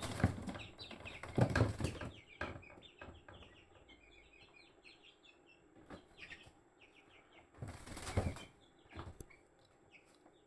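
Baby chick peeping in many quick, short high notes, with noisy flurries of wing flapping and scuffling in the first two seconds and again about eight seconds in.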